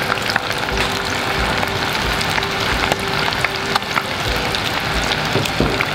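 Small fish deep-frying in a pot of hot oil: a steady bubbling sizzle, dotted with crackles and pops.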